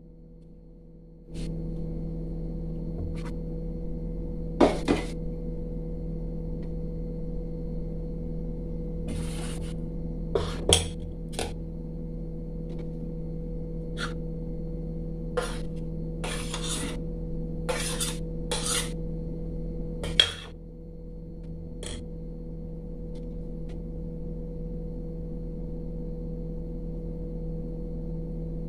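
Stainless steel plates, bowls and spoons clinking and clattering in a series of short knocks and scrapes as they are handled, over a steady low mechanical hum.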